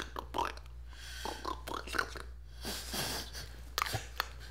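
Faint voices in the background over a low, steady hum.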